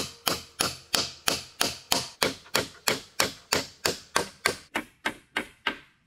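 Hammer driving nails into wooden poles: a steady run of sharp knocks, about three a second, growing fainter toward the end.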